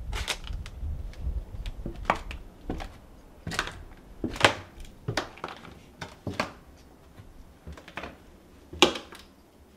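Footsteps going down wooden stairs littered with broken drywall and ceiling debris: irregular crunches and cracks about once a second, the sharpest about halfway through and near the end.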